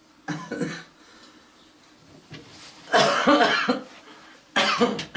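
An elderly woman coughing in three bouts: a short one near the start, the longest and loudest about three seconds in, and another just before the end.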